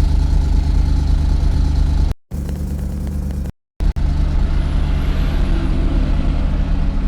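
BMW E70 X5 engine idling steadily, broken by two brief dropouts in the recording.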